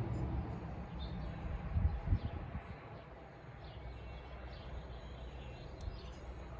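Outdoor background rumble with faint bird chirps and a couple of dull thumps about two seconds in.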